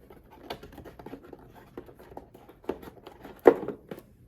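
Small packaging being handled and opened by hand: rustling and scraping with a run of small clicks, the loudest a sharp click about three and a half seconds in.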